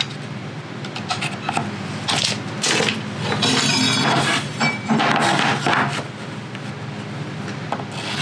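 Thin plywood pieces being handled on a work surface: a run of light knocks and taps, with louder scraping and clattering in the middle, over a steady low hum.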